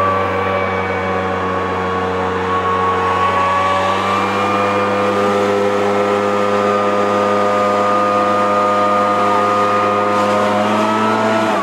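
Backpack leaf blower's gas engine running steadily at high throttle, with the rush of air through the tube; near the end the throttle is released and the engine note drops suddenly.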